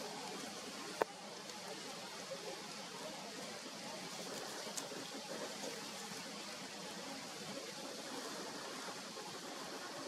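Steady hiss of outdoor background noise, with a single sharp click about a second in.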